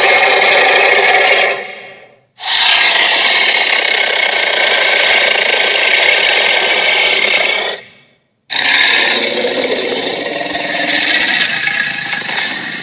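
Loud, harsh, rattling film sound effects, in three separate takes with short silences between them, about two seconds in and about eight seconds in.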